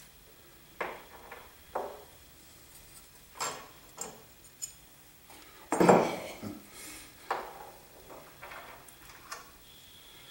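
Broken metal pieces of the blown-up piston and connecting rod of an Atlas Copco LE20 compressor pump clinking and clanking as they are pulled from the crankcase and set down on a wooden pallet. Several separate knocks, the loudest about six seconds in.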